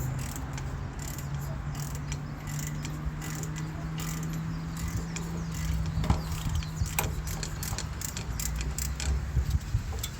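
Hand socket ratchet clicking in irregular runs as the 18 mm hub bolts are backed out of a truck's front wheel hub, over a steady low hum.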